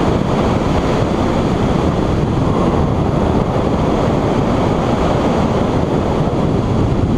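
Wind rushing over the microphone of a camera mounted on the roof of a 2013 Ford Mustang Boss 302 at speed: a steady rush of noise that largely covers the car's V8 engine.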